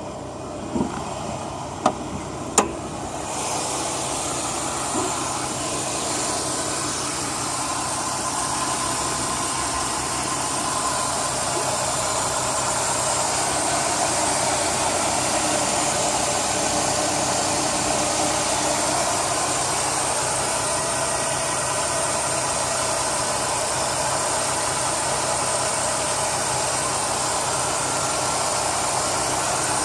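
Chrysler 3.5L V6 engine idling steadily, the engine that is making the ticking the owner is chasing. A few sharp clicks come in the first seconds, and the engine grows louder about three seconds in.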